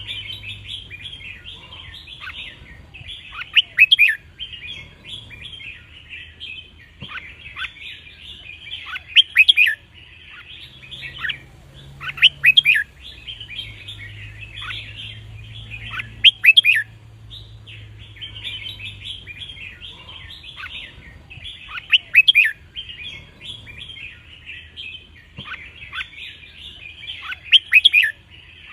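Red-whiskered bulbul song: a steady run of chattering, warbling notes, broken every few seconds by a louder, sharper phrase.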